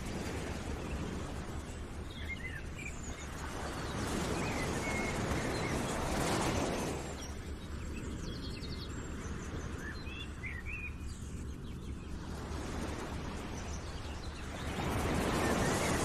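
Nature ambience: small birds chirping over a steady wash of outdoor noise that swells and falls twice, like surf or wind.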